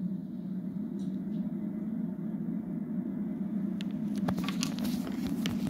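Steady low rumble of the rocket launch webcast's background audio coming through a TV speaker, with a few sharp clicks in the last two seconds.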